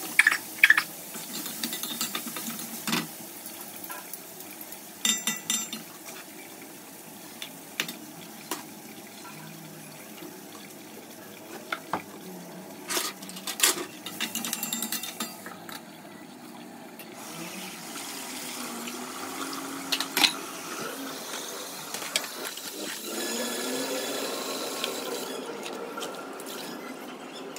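Cooking utensils and pots clinking and knocking: a dozen or so sharp, scattered metal knocks over a steady low background noise.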